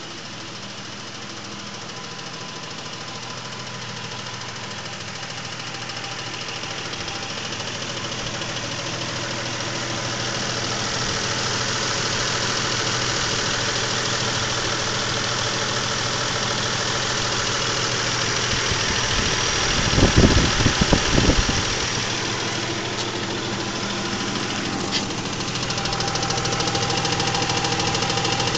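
2000 Isuzu Trooper engine idling with a steady ticking knock. The owner says the tick got much louder after switching to Mobil 1 15W-30 oil, sounds louder from underneath than from on top, and wonders whether it is the crankshaft bearings. About two-thirds of the way through comes a brief low rumbling, like wind or handling on the microphone.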